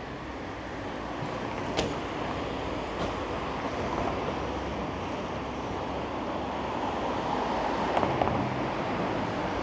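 City street traffic: a steady wash of car noise that grows louder toward the end, with a few faint clicks.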